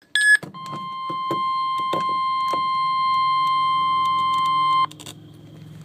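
Emergency alert tone from a weather radio broadcast: a brief burst of data tone, then a single steady high-pitched alarm tone that holds for about four seconds and cuts off abruptly. The tone is the one that marks a National Weather Service warning. Irregular static crackles run through it, and a low hum remains after it stops.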